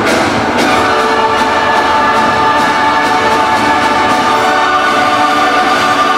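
Orchestral fireworks-show music with brass holding long chords, and faint sharp cracks now and then under it.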